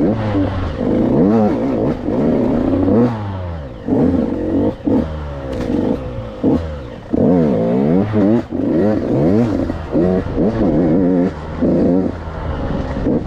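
KTM 85 two-stroke dirt bike engine revving up and dropping back again and again as the throttle is worked on a tight trail, with the sound briefly dropping out several times when the throttle is shut.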